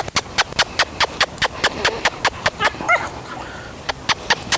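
A rapid, even run of sharp clicks, about five a second, that stops for about a second near the three-second mark. In that gap a short whine rises and falls, from the young husky being walked on the leash.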